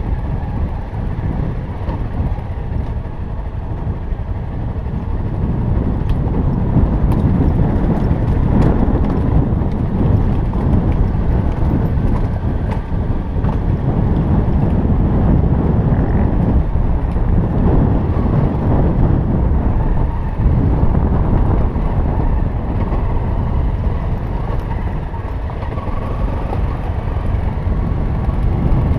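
Trail motorcycle ridden along a rough dirt track: engine running, mixed with a steady low rumble of wind and track noise on the helmet microphone.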